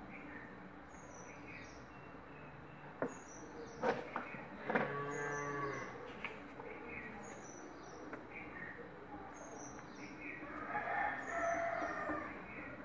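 A cow moos once, a steady low call about a second long, starting about five seconds in and faint in the background.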